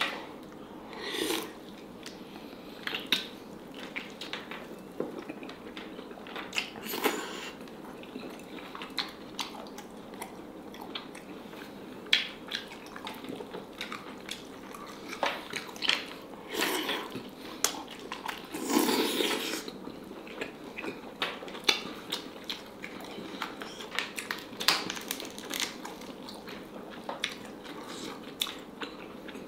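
Close-miked eating sounds: a person chewing and biting black-skinned chicken, with many short wet clicks and smacks throughout and a few louder bursts about 1, 7, 16 and 19 seconds in.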